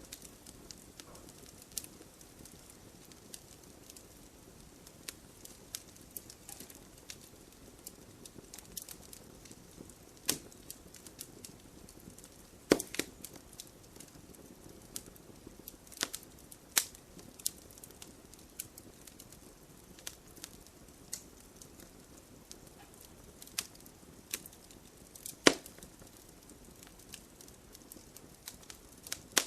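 Wood fire crackling: irregular sharp snaps and pops over a soft low hiss of burning. A handful of louder pops stand out, the loudest near the end.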